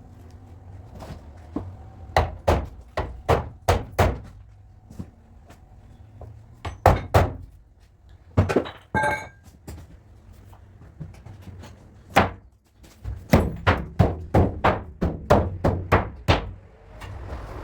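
Hammer blows on car body sheet metal, struck in bursts of quick taps at about three a second, with one strike about nine seconds in leaving a short metallic ring.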